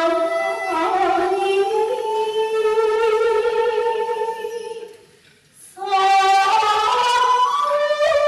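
Slow, unaccompanied melody of long held notes with wide vibrato, sliding up between notes. The phrase breaks off about five seconds in, and a new held note starts a moment later.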